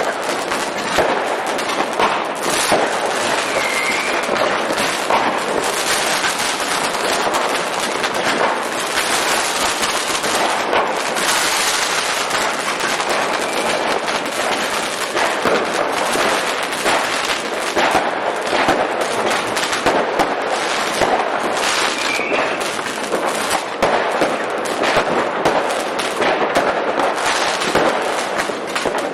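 Fireworks going off in a dense, unbroken barrage of rapid firecracker bangs and crackles, many a second with no pause.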